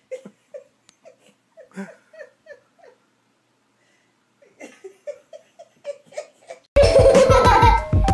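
Soft giggling in quick short bursts, pausing for about a second and a half before starting again. Near the end, loud music with a beat comes in suddenly.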